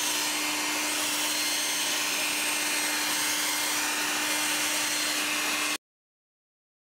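Conventional handheld hairdryer running steadily, its blowing noise carrying a steady hum. It cuts off abruptly almost six seconds in, leaving dead silence.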